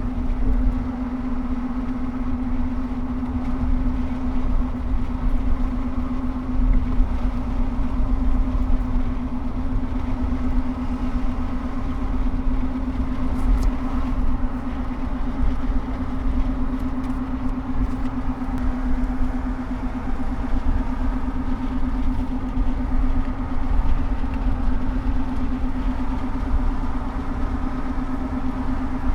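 A car driving at a steady speed: continuous road and engine rumble with a steady droning hum.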